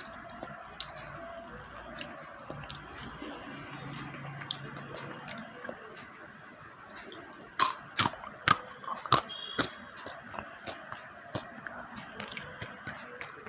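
Slate pencil being bitten and chewed, making dry crunching clicks. A little past the middle comes a run of about six loud, sharp crunches within two seconds, with lighter crunching before and after.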